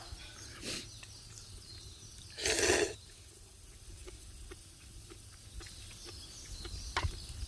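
Campfire crackling with scattered small pops and clicks. About two and a half seconds in there is a louder half-second rustle or scrape, and a sharper snap comes near the end.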